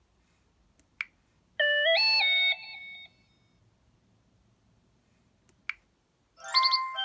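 LG Spirit phone playing short electronic alert tones. A click comes about a second in, then a quick three-note chime that rings briefly and fades. Another click and the start of a new chime come near the end.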